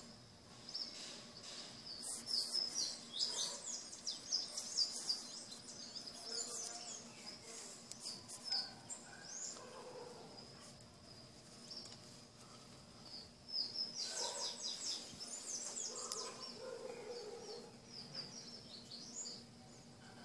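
Small songbirds chirping and twittering, with quick runs of high chirps about two seconds in and again about fourteen seconds in, over a steady thin high-pitched whine.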